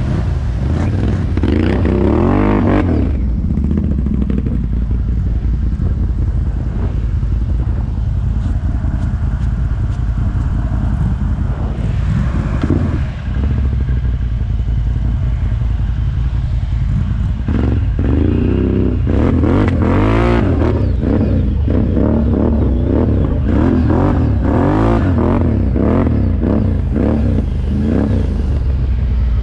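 ATV engine running under load, revving in repeated surges where the pitch climbs and falls, with clattering and scraping from the machine as it is worked.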